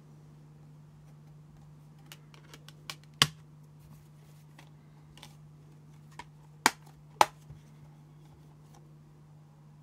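Clicks and taps of a Blu-ray disc and metal steelbook case being handled: a few light ticks, one loud sharp click about three seconds in, and two more close together about seven seconds in.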